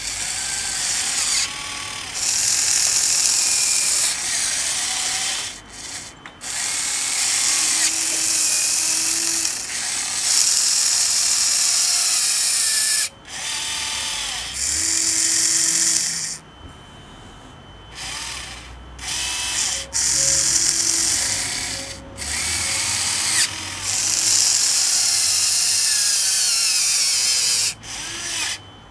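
Electric motors and gearing of a Huina 580 RC excavator whining in repeated bursts of a few seconds, stopping and starting as the arm drives a ripper into soil; the whine rises and falls in pitch as the motors take up load.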